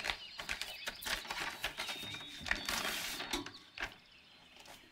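Handling noise as a book is picked up and carried: rustling paper and small taps and clicks, with soft footsteps on a tiled floor. It busies for about three and a half seconds, then goes quiet near the end.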